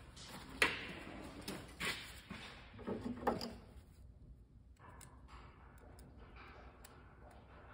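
Snap ring and snap ring pliers being picked up and handled over a steel workbench: a few sharp metal clinks and knocks in the first three and a half seconds, then only faint light ticks as the ring is fitted onto the pliers.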